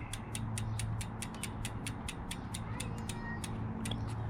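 Bicycle rear freehub ratcheting as the wheel freewheels: a steady run of sharp, evenly spaced clicks, about six a second.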